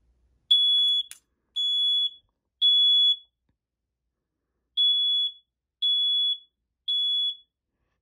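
First Alert smoke alarm sounding its test: loud, high-pitched beeps in the temporal-three pattern, three beeps, a pause, then three more. This is the standard smoke-alarm evacuation signal that the test button sets off. A short click comes right after the first beep.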